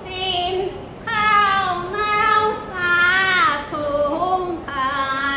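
An elderly woman chanting a sung prayer in a high voice into a handheld microphone, in long drawn-out phrases that slide up and down in pitch, with short breaths between them.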